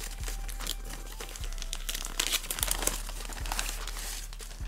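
Printed gift-wrapping paper rustling and crinkling as a packet is unwrapped by hand, loudest a little past the middle.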